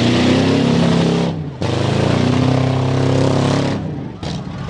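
Demolition derby pickup trucks' engines revving hard under load as they push and spin in the dirt. The sound drops out briefly about a second and a half in and again near the end.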